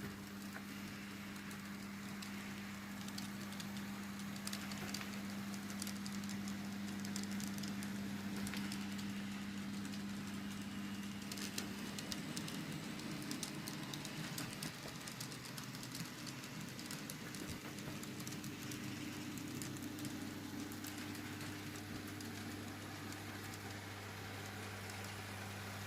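DCC-fitted N gauge Class 124 model train running on track: a steady low motor hum that shifts in pitch about halfway through, with faint ticking of the wheels over the rail joints.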